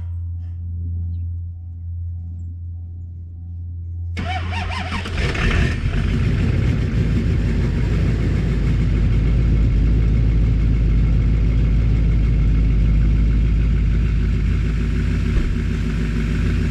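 Truck engine cranking about four seconds in, catching within a couple of seconds and then running loud and steady: a cold start after about a month sitting in the snow without being plugged in.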